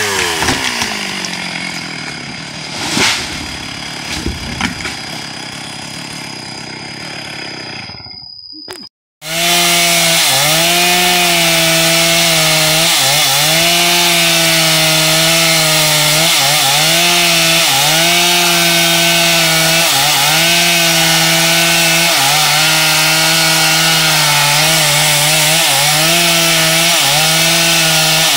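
A chainsaw's engine slows with a falling pitch, followed by two sharp cracks and a thin, steady high tone. After a brief silence about nine seconds in, the chainsaw runs at full throttle cutting teak, its pitch dipping every second or two as the chain loads up in the wood.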